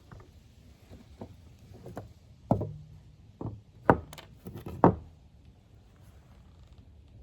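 A handful of sharp knocks and clicks, the loudest about four and five seconds in, from hand work on a backpack blower's fuel tank and fuel lines.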